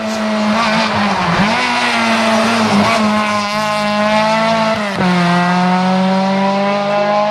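Race car engine running hard at high revs. About five seconds in, the pitch drops at a gear change and then climbs again.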